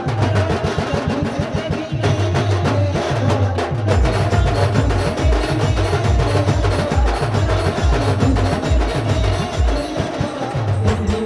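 Adivasi village band playing a fast timli dance tune: dense, rapid drumming with deep bass-drum beats that grow heavier about two seconds in, under a steady held melody line.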